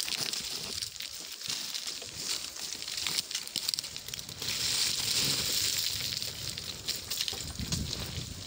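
Hiking boots crunching and skidding on a steep track of loose gravel and stones, with scattered sharp clicks and scrapes and a louder, steadier rush for about a second and a half halfway through.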